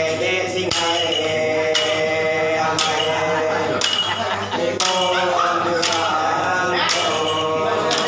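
Iban lemambang ritual chant sung by male voices in unison on long held notes, with a jingling strike about once a second as the bards' staffs are struck on the floor in step.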